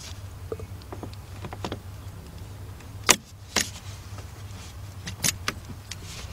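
Metal clicks and clinks of locking pliers (vice grips) being handled and set on a hose clamp: a few light clicks, a sharp click about three seconds in, another just after, and a couple more around five seconds. A steady low hum runs underneath.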